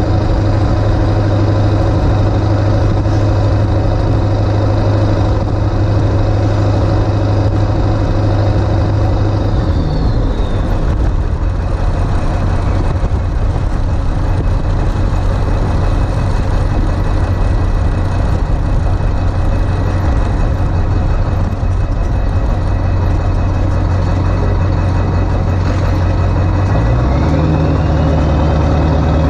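Ford 7.3 Powerstroke turbo-diesel V8 running steadily on a drive. Its note drops about ten seconds in and steps back up near the end. A faint high whistle falls and rises with each change.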